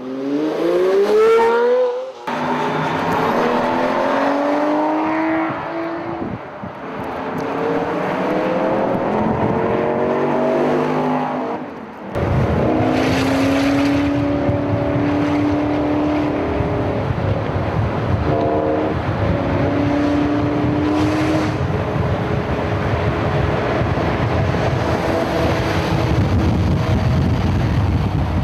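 High-performance supercar engines revving up hard as they accelerate away, several rising sweeps one after another. From about halfway, a steady engine drone with road and wind noise at highway speed, heard from inside a car, its pitch stepping a couple of times as the revs change.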